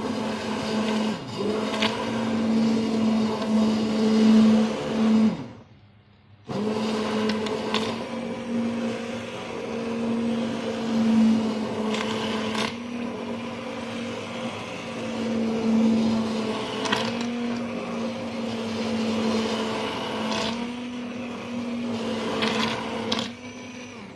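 Electric stick blender running in a steel pot of potassium-hydroxide soap paste, a steady motor hum with occasional clicks; it stops for about a second early on and starts again. The paste was still runny and is being blended to thicken it.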